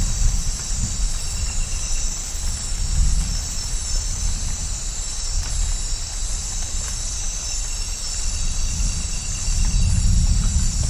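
Low rolling rumble of distant thunder that swells again near the end, over a steady high chorus of insects and the hiss of rain.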